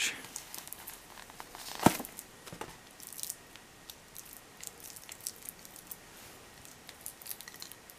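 Stainless steel and gold-tone watch bracelet being handled as it is slid off a cushioned pillow: soft rustling and small scattered clicks of the metal links, with one sharp click about two seconds in.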